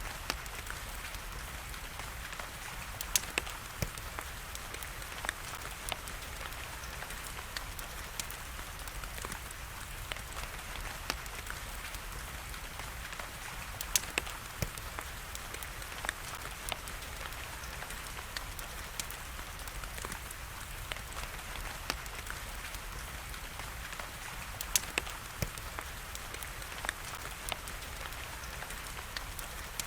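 Steady rain hiss with scattered sharp crackles and pops from a fireplace fire, a few of them louder.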